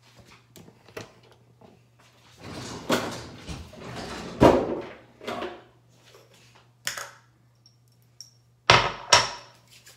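Rummaging in a bathroom vanity drawer among toiletries: scattered clicks, a stretch of rustling and clattering in the middle, and two loud knocks near the end, over a low steady hum.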